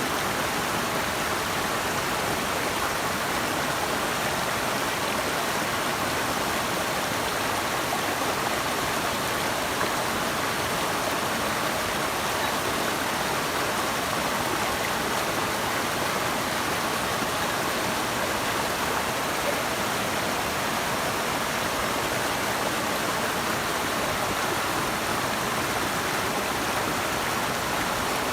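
Running water rushing steadily, an even hiss with no separate splashes or drops standing out.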